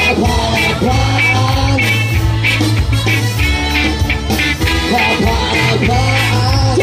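Live rock band playing loud: electric guitars, bass, keyboard and drums, with a lead singer over them.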